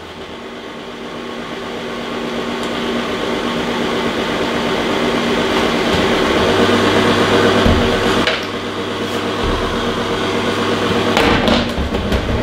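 WMF Küchenminis food dehydrator running, its fan giving a steady hum that grows louder over the first several seconds. A few sharp plastic knocks come from the drying trays being set in place, about eight seconds in and near the end.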